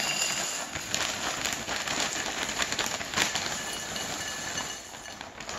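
Dry cereal (a Lucky Charms and Cinnamon Toast Crunch mix) pouring from a plastic bag liner into a glass bowl: a continuous dense rattle of many small pieces hitting the glass and each other, easing off near the end.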